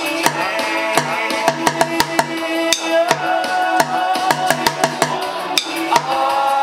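Drumsticks beating a repeating rhythm on the center of a plastic bucket drum, with sticks clicked together at the end of each pattern, played along with the chorus of a recorded synth-pop song.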